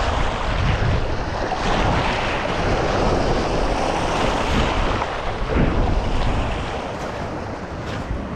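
Sea surf washing onto the beach, with wind buffeting the microphone in a gusty low rumble.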